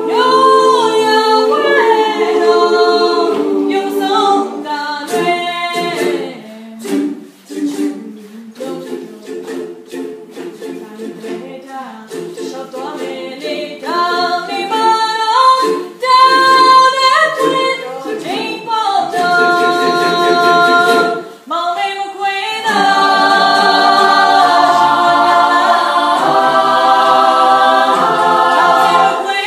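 Kachin choir singing a cappella in several-part harmony. The singing thins to a softer, sparser passage in the middle, and the full choir comes back loud on sustained chords about 22 seconds in.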